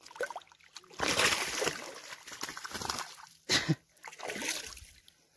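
Water splashing in the shallows as a just-caught fish is let go and kicks away, in several uneven bursts, the loudest about a second in.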